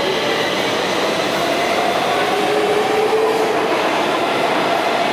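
Stockholm metro train running in the underground station: a steady rumble of wheels on rails with a faint wavering whine.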